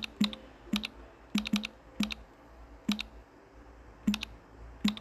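Key clicks from typing on a smartphone's on-screen keyboard: about nine short, sharp taps, unevenly spaced, as a word is entered letter by letter.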